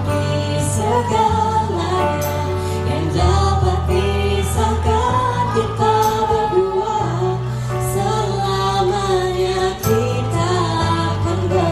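A song: a woman singing a wavering melody over instrumental backing with a steady bass line and regular cymbal beats.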